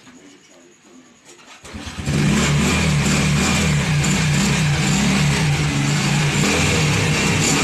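A Euro Sport R110 motorcycle's 110 cc single-cylinder four-stroke engine starts about two seconds in, then runs steadily. This is its first start after an oil change.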